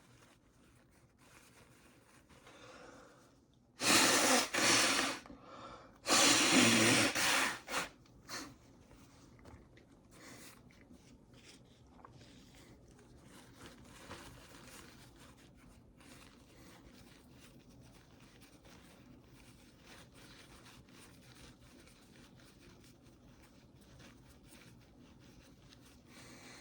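A person sneezing: two loud bursts about four and six seconds in, after a short build-up of breath. The nose is being tickled with a rolled-up tissue to bring the sneeze on, and for the rest of the time there is faint tissue rustling and breathing.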